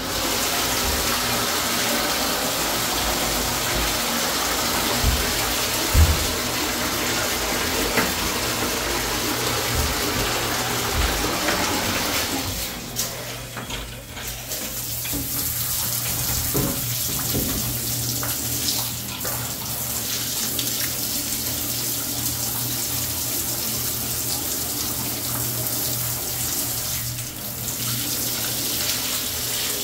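Water running into a bathtub and splashing onto a layer of sewage sludge, rinsing it toward the drain. It starts suddenly at the beginning and runs steadily, the sound turning thinner a little under halfway through.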